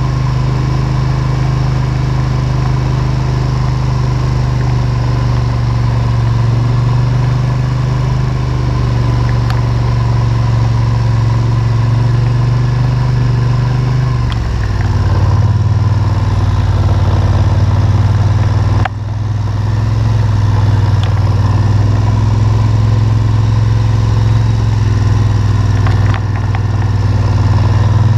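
ATV engine running steadily, its pitch dropping slightly about halfway through, with a brief dip in level a few seconds later.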